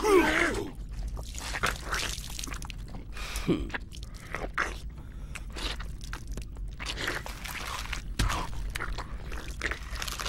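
Cartoon gore sound effects: a short cry right at the start, then a long run of irregular crunching, biting and tearing, as of a creature's jaws breaking flesh and bone.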